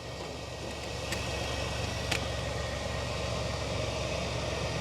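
1997 GMC Safari's 4.3 Vortec V6 idling steadily after a repaired fuel-pump connector let it start, with a couple of faint clicks.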